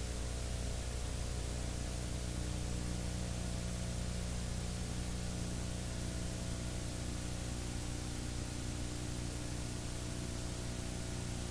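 Steady hiss with a low electrical hum: the recording's own background noise, with no speech or other sound.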